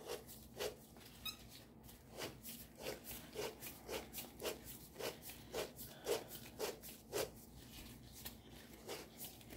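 Hand-held oil filter cutter's wheel scoring around the steel canister of a Denso-made Toyota oil filter, a faint rasping stroke about twice a second as the tool is turned round. The canister is thick and slow to cut through.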